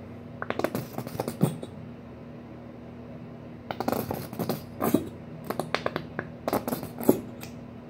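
Mustard squeezed from a plastic squeeze bottle onto a sandwich roll: crackly, sputtering clicks in two bursts, the second longer, over a faint steady hum.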